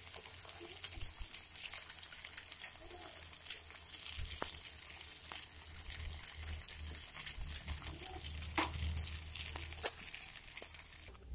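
Meat and macaroni pizza topping in tomato sauce sizzling in a frying pan, a steady hiss with scattered sharp pops and clicks.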